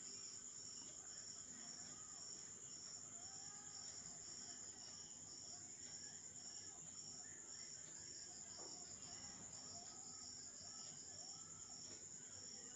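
Crickets chirping faintly: a steady high trill with a pulsing chirp that repeats a few times a second.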